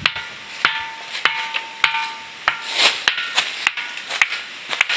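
A large boulder struck repeatedly with a hand-held stone, each knock ringing on with a clear tone. The knocks come about two a second, quickening a little past the middle.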